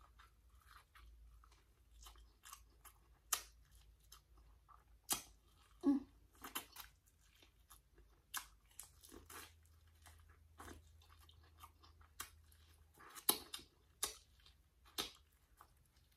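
Close-up eating sounds: irregular crunchy bites and chewing of buttered corn on the cob, with wet mouth clicks.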